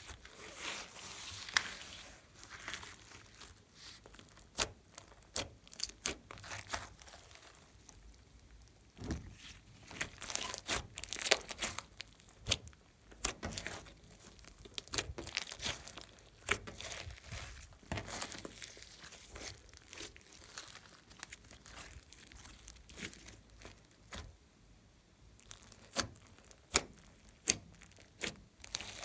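Hands squishing, stretching and folding a large mass of sticky, glitter-filled slime, giving many irregular sharp clicks and pops with softer squelching stretches between them.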